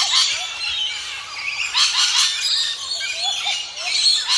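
Many birds calling at once: a dense chatter of short, high chirps and quick rising and falling calls, overlapping without a break.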